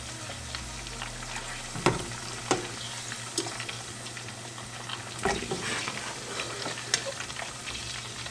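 Potato fries sizzling steadily in hot oil while they are scooped out with a strainer, with a few sharp knocks of the utensil against the pot.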